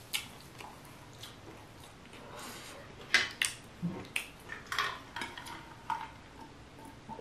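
Close-up eating sounds, then a stainless steel water bottle picked up and handled with several light clicks and clinks a few seconds in, followed by drinking from it.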